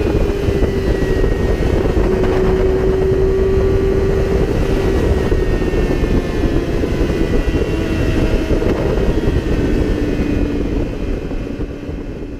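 Yamaha R6 inline-four engine droning at a steady high speed under heavy wind rush on the microphone, its pitch slowly falling as the bike eases off. The sound fades out near the end.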